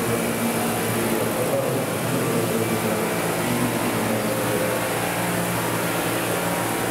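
Vario CH-47 Chinook scale model helicopter hovering, its two motors and tandem rotors running steadily: a drone of several pitches over a rushing noise.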